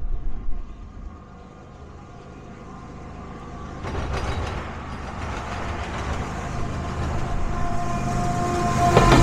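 An approaching freight train, its rumble building steadily louder as it nears, with faint steady tones over it. There are a few low thumps at the very start.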